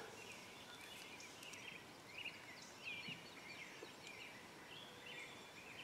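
Near silence: faint outdoor background with scattered distant bird chirps.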